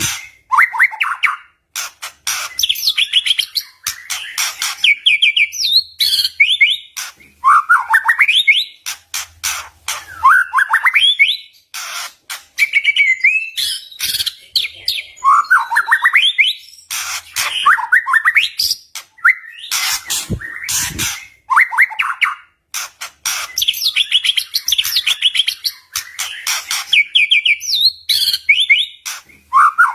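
White-rumped shama singing in quick repeated phrases, with fast rising trills broken up by sharp clicking rattles.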